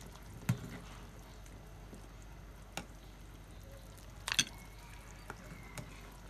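A few light clinks of a metal ladle against the bowl and pot, with faint dripping of broth, as stewed vegetables and pork bones are ladled out; a small cluster of clinks comes a little after four seconds.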